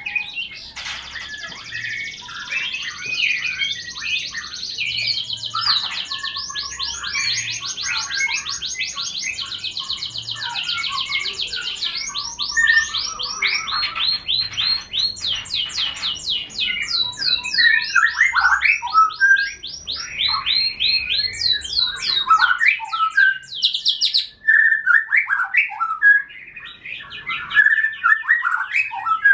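Caged songbirds singing continuously: long rapid trills of repeated high notes, interleaved with lower, varied chirps and warbles.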